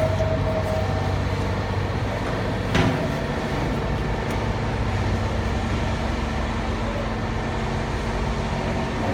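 Machinery of an ERW steel pipe production line running with a steady hum, and one sharp metallic knock about three seconds in.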